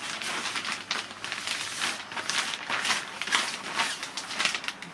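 Clear plastic bag rustling and crinkling in irregular bursts as a model aircraft fuselage is slid out of it.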